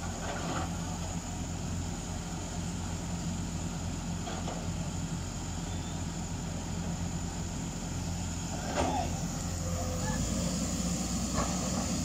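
Hydraulic excavator diesel engines running steadily under load, a low drone that grows stronger about ten seconds in as the machine digging in the mud works harder. Faint voices of onlookers come and go.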